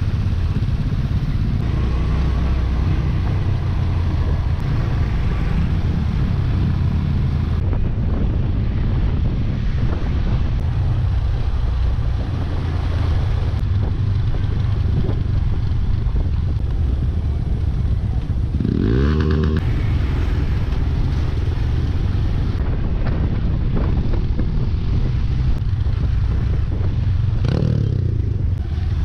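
Hero XPulse's single-cylinder engine running steadily under a rider on a rough dirt track, with the engine revving up and back down about two-thirds of the way through and briefly again near the end.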